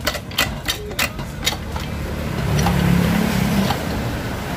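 Red hydraulic floor jack being pumped by its long handle to raise a car: a quick run of clicks, about four a second, for the first second and a half. After that a low steady rumble swells in the middle and fades.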